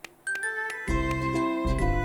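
Background music from the cartoon's score, starting after a brief near-silence, with held notes and a low bass that comes in about a second in.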